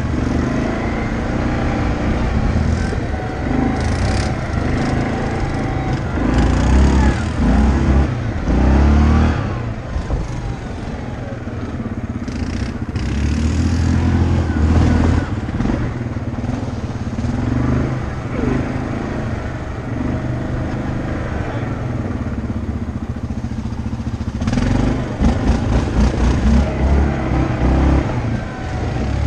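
ATV engine running under way, its pitch rising and falling with the throttle over a steady low rumble.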